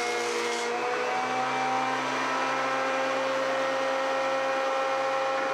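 Benchtop jointer running while a board's edge is passed over its cutterhead: a steady motor whine over a broad cutting hiss, the whine shifting pitch about a second in, then fading out just after the end.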